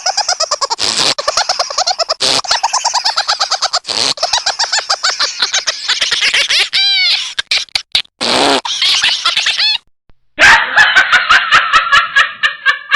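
Novelty comic sound effects: fast, stuttering pitched noises broken by a few short gaps, with quick rising-and-falling chirps about seven seconds in. After a pause near ten seconds comes a louder, rapid cackling laugh effect.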